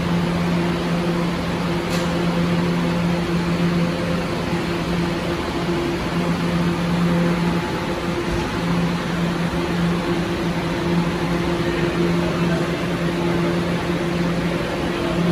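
Ride noise inside a Kawasaki R211A subway car on the move: a steady rush of wheel and track noise under a constant low electric hum.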